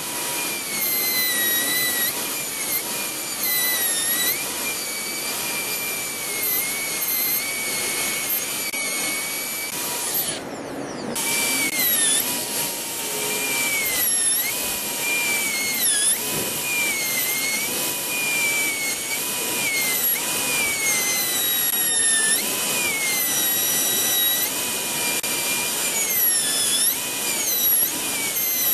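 High-speed dental handpiece whining as its diamond bur cuts down a model tooth for a bridge abutment preparation, over a steady hiss of water spray. Its pitch dips each time the bur bears on the tooth and climbs back as it eases off, and the whine stops for a moment about ten seconds in.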